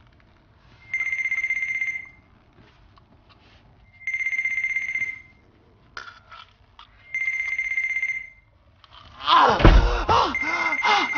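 Telephone ringing: an electronic ring about a second long, repeated every three seconds, four times. Near the end a loud rushing sound with sweeping pitch comes in over the last ring.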